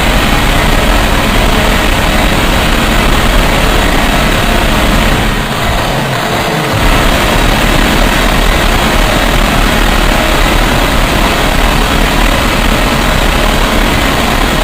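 Loud, dense wall of noise spread evenly from low rumble to high hiss, with no clear tone or beat; the low end drops away briefly about five seconds in and returns about a second and a half later.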